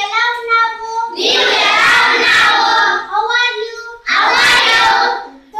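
A girl chants Punjabi phrases in a sing-song voice, and each time a class of children repeats them back in unison: call-and-response recitation, twice in turn.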